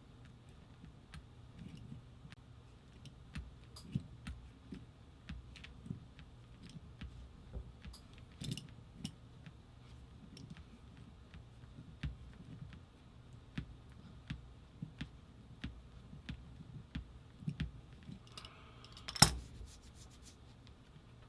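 Scattered light metallic clicks and taps from small metal parts and hand tools being handled and worked, at irregular intervals. Near the end comes a brief scrape and then one much louder sharp click.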